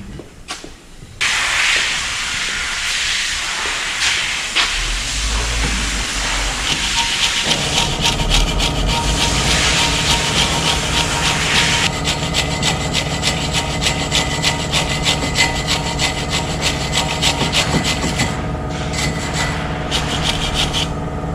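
A hand tool scraping against a car's rear brake caliper carrier, making room for a new brake pad that is slightly thicker than the old one. The scraping starts about a second in and turns into quick regular strokes in the second half. A steady engine-like hum runs underneath from about a third of the way in.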